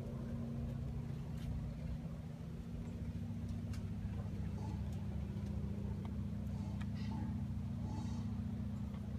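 A steady low motor hum, with a few faint clicks over it.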